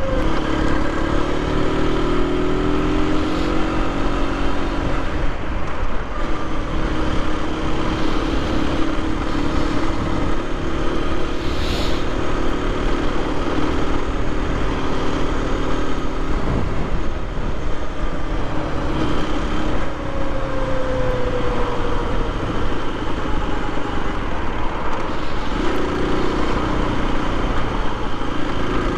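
Aprilia RS 125's single-cylinder four-stroke engine running under way at city speed, its note shifting up and down with the throttle, over a steady rush of wind.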